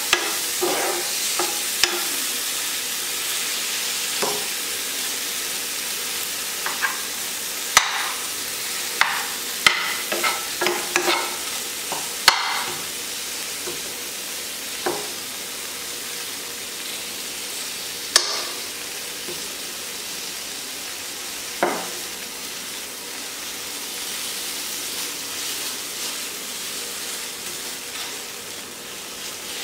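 Mawa (khoya) sizzling softly in a non-stick frying pan as it is melted without browning. A steel spoon stirs and breaks it up, clicking and scraping against the pan now and then, with a run of clicks about eight to twelve seconds in.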